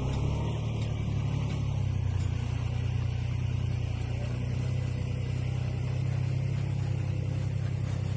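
A steady low rumble that holds evenly and does not rise or fall.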